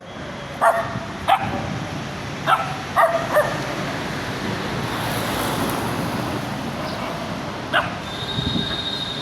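Small dog barking: six short, high-pitched barks, five in the first few seconds and one more near the end, over a steady background hiss.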